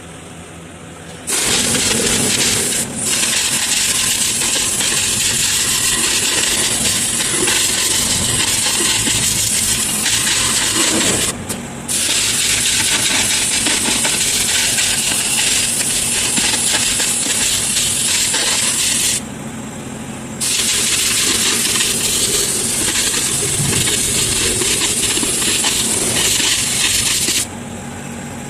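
Loud steady hiss from shop metalwork, starting abruptly about a second in. It runs in long stretches, with a brief break about 3 s in, another around 11 s, a longer one of about a second near 19 s, and stops shortly before the end, over a low background hum.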